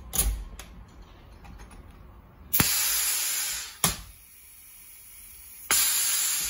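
Avdelok 73200 pneumatic-hydraulic riveting tool setting a 10 mm lockbolt: a few light clicks as the tool is fitted on, then a loud hiss of air for about a second while it pulls, ending in a sharp snap as the pintail breaks. A second burst of air hiss comes near the end as the tool releases.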